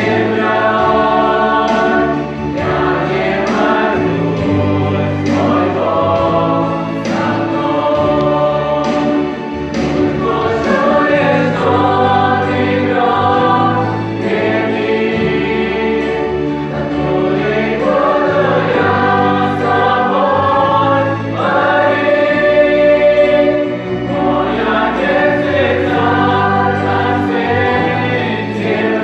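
Youth choir singing a song in several voices over low accompaniment notes that hold and change every second or two.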